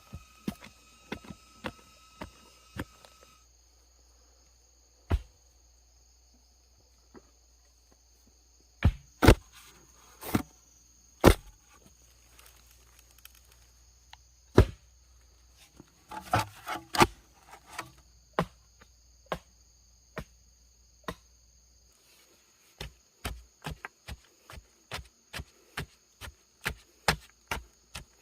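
Wood being chopped: sharp single strikes at uneven intervals, then a steady run of about two strikes a second over the last five seconds or so. A steady high insect buzz runs underneath.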